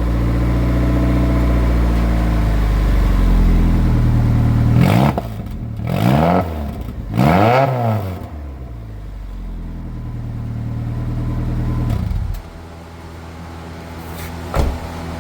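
1999 Saturn SL2's 1.9-litre DOHC four-cylinder running with no muffler or resonator, its exhaust open straight after the catalytic converter. It idles, is revved twice, rising and falling, settles back to idle, and then its note drops away sharply about twelve seconds in.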